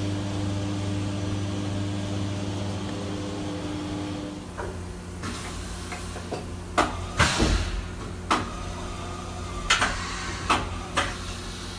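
Awea BM-1600 50-taper machining center doing an automatic tool change on its 24-tool side-mount tool changer. Over the steady hum of the running machine, a tone stops about four and a half seconds in. Then come a series of sharp mechanical clunks and clicks, with a short hiss about halfway through.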